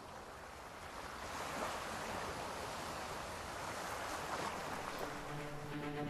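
A steady rushing noise that slowly grows louder; held music notes come in about five seconds in.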